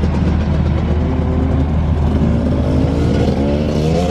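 Motorcycle engines running and revving under a steady low rumble, with the pitch rising about three to four seconds in.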